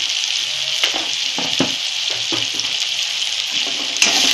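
Chopped onions sizzling in hot oil in a kadhai, with a steel spoon stirring and scraping through them in a few short knocks. The sizzle grows louder about four seconds in.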